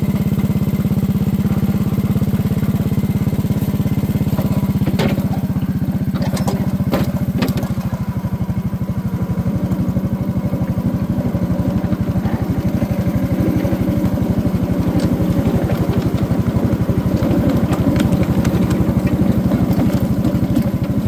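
Small petrol engine of a backyard ride-on railroad train running steadily as it hauls a loaded gondola along the track, with a few sharp clacks about five to seven seconds in.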